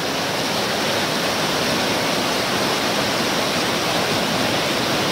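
Floodwater pouring over a low dam spillway: a steady rush of churning white water, even throughout.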